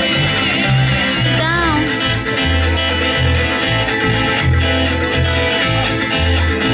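Live Hawaiian band music for hula: strummed acoustic guitars over a steady, pulsing bass line, with a few sliding notes about a second and a half in.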